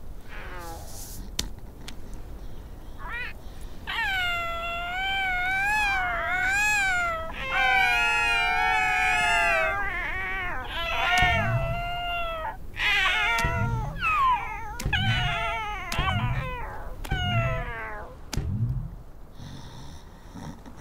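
High-pitched cries of cartoon seals: long wavering calls with several voices overlapping, then a string of short cries about one a second, each with a low thud.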